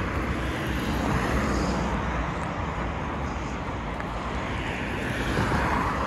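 Road traffic passing on a city street: a steady rush of engines and tyres that swells and eases a little.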